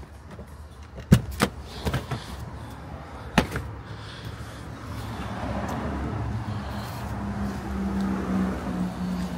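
Rear seat of an SUV being folded down: a few sharp clacks of the seatback latches and panels in the first few seconds. In the second half a steady low vehicle engine hum swells and holds.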